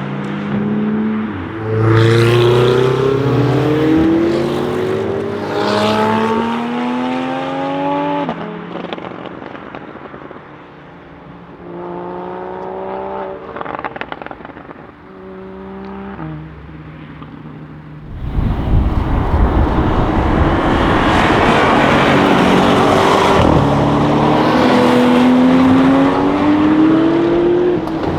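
Audi RS7 C8's twin-turbo V8 through a loud custom exhaust, accelerating hard with the revs climbing through several gear changes, then a quieter stretch of shorter revs. About 18 seconds in, a much louder full-throttle run starts, its note climbing again.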